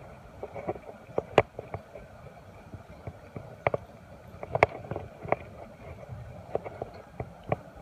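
Scattered, irregular sharp clicks and taps, with louder knocks about one and a half and four and a half seconds in, over a faint steady outdoor background.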